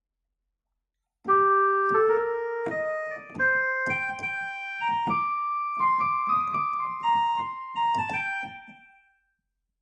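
Roland E-X20 keyboard playing a solo melody on one of its Indian instrument voices: a phrase of single notes with sharp attacks and a few pitch bends. It starts about a second in and dies away near the end.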